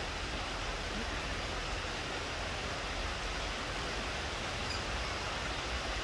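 Steady, even background hiss with no distinct sounds standing out.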